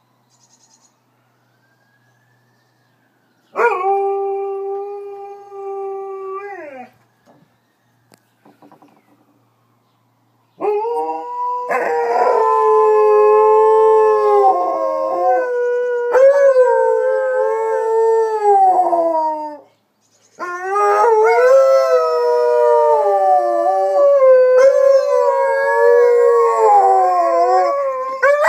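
Two Alaskan malamutes howling in answer to a siren. A faint rising and falling siren wail comes first, then one dog gives a single howl a few seconds in. From about a third of the way through, both dogs howl together in long overlapping howls that waver and slide in pitch, with a brief break about two-thirds of the way through.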